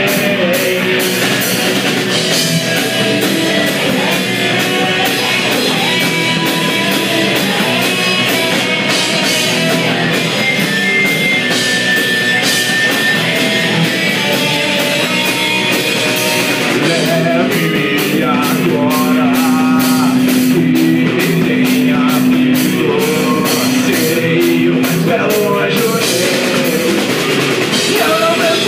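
Live rock band playing: two electric guitars, electric bass and a drum kit, with a singer's vocals over them.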